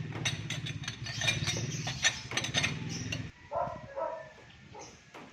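An engine runs steadily while metal tools clink and tap sharply for about three seconds. Then the engine sound stops abruptly and a dog barks twice.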